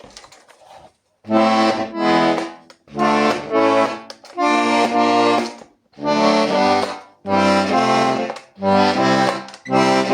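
Hohner Corona II GCF three-row diatonic button accordion playing full chords with bass notes. The chords are held about a second each in a series of phrases, with short breaks between them, starting about a second in.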